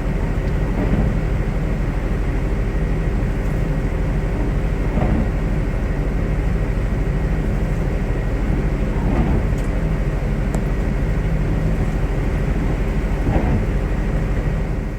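Gusty wind buffeting the microphone: a steady low rumble that holds at one level with small swells.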